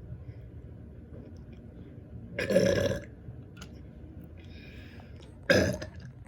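A person burps loudly twice during a burping contest: a longer burp of about half a second a little over two seconds in, then a shorter one near the end.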